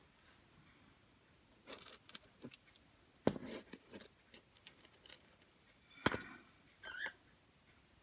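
Scattered light clicks and taps of small objects being handled on a tabletop, with two sharper knocks, one about three seconds in and one about six seconds in.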